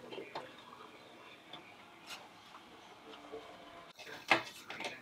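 Wooden slats of a tent frame knocking and clicking together as they are fitted into place, a few light clicks and one sharp knock, the loudest, about four seconds in.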